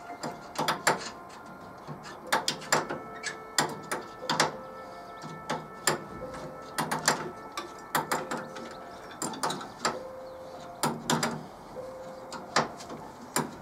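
Ratchet spanner clicking in short bursts, with sharp metallic ticks, as the bolts of the front bumper overriders are tightened.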